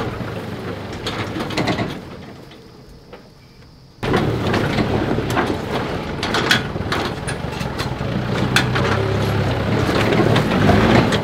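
A 4x4 ute's engine labouring in low range as the vehicle crawls over rocks, with scattered sharp knocks and clunks from the tyres and underbody on rock. The sound fades after about two seconds and comes back suddenly and loud about four seconds in.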